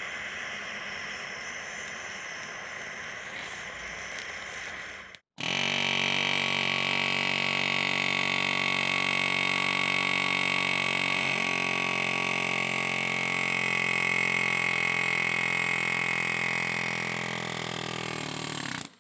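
Steady hiss of a gas torch for about five seconds. Then a pneumatic air hammer runs in one long steady buzz of rapid blows against the end of a rusted rear axle shaft, driving it out of an E46 BMW M3 rear wheel hub, and stops abruptly near the end.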